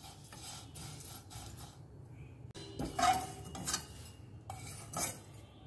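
Steel spoon scraping and clinking against a steel kadai while dry-roasted flattened rice (chira) is stirred and scooped out, with the light rustle of the crisp flakes. There are a few sharper clinks about three seconds in and again near five seconds.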